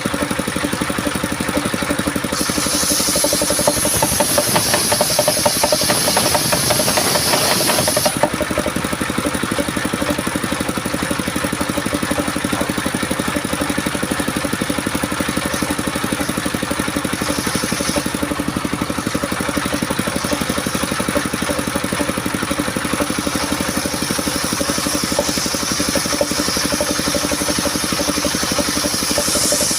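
Engine-driven circular sawmill running steadily while its blade cuts coconut-palm timber. A loud, high hissing cut runs from about two seconds in for about six seconds, and another cut starts building near the end.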